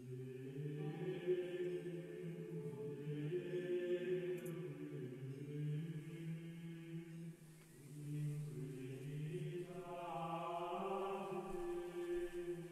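Slow, sustained choral chant: voices singing long held notes that begin abruptly, with a short breath-like dip about halfway through and a fuller, brighter phrase near the end.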